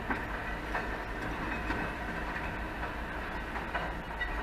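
Faun Rotopress rear-loading garbage truck's body machinery running, a steady mechanical rumble with a low hum, while its bin lifter empties a wheelie bin, giving a few short clattering knocks. Heard from inside a car behind the truck.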